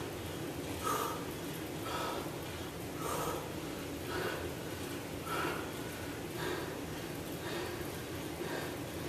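A man breathing hard through fast alternating dumbbell curls, with a sharp exhale about once a second.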